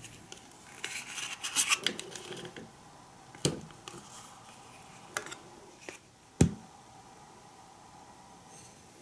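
Thin plastic pudding tray crackling and scratching as it is handled, then a few sharp knocks against a ceramic plate, the loudest about six and a half seconds in, as the pudding is turned out of its mold onto the plate.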